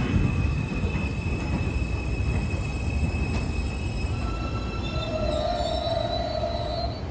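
New York City Subway trains rumbling on elevated tracks with their steel wheels squealing. A thin high squeal fades out about four seconds in. A louder squeal follows about five seconds in, with a mid tone and higher whines together, and stops near the end.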